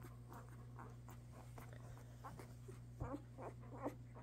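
Faint squeaks and grunts from a young Landseer Newfoundland puppy, with scratchy rustling of paws and a hand on a fleece blanket, over a steady low hum. The small squeaks come mostly about three to four seconds in.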